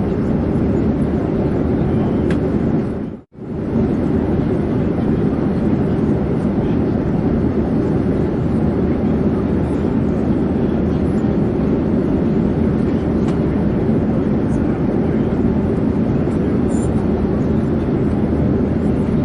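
Steady, even drone of an airplane in flight, a low noise with no distinct tones, cutting out briefly and fading back in about three seconds in.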